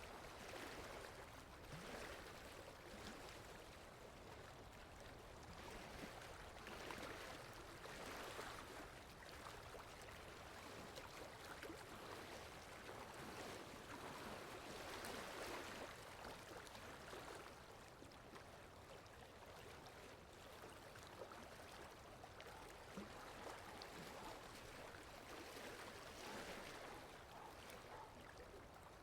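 Near silence: faint, even background noise that swells and fades gently every few seconds, with no distinct calls.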